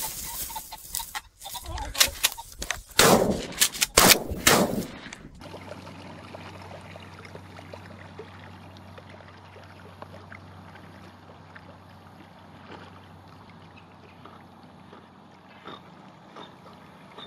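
About five loud gunshot-like bangs, each with an echoing tail, over the first five seconds. Then a quiet steady low hum with faint small splashes from a German Shorthaired Pointer swimming with a stick in its mouth.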